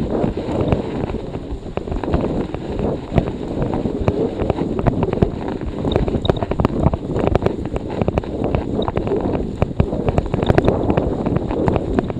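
Storm wind buffeting a handlebar camera's microphone while a Scott Speedster CX bike rolls over a snowy path, with a constant scatter of small rattles and knocks from the bike.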